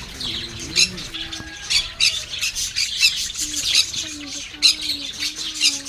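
A flock of Java sparrows (Java finches) calling, with many short, sharp chirps overlapping all the way through.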